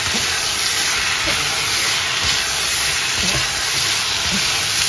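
Fried rice sizzling and hissing steadily in a hot pan as rice is stirred into sauced vegetables, with a few faint knocks.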